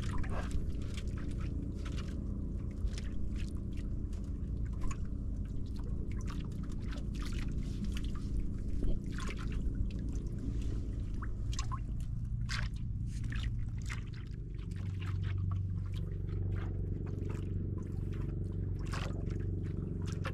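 Water splashing, dripping and trickling with many small sharp clicks, over a steady low motor hum that changes pitch and grows stronger about fifteen seconds in.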